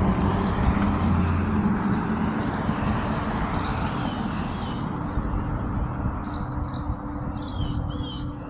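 Road traffic running past, its rumble with a low engine hum slowly fading, while small birds give repeated short chirps that come through more clearly near the end.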